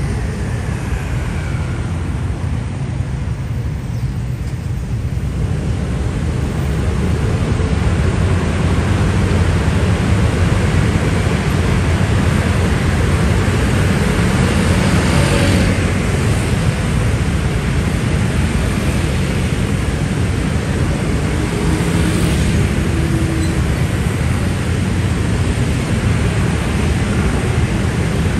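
Dense road traffic, mostly scooter and motorcycle engines, running steadily and getting louder several seconds in.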